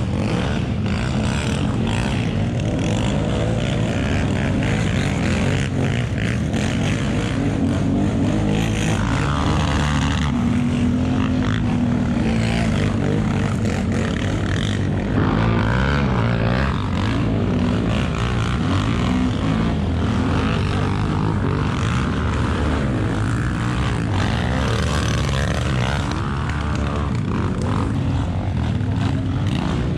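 Several quad bike (ATV) engines running and revving as they circle on a dirt field, their pitch rising and falling.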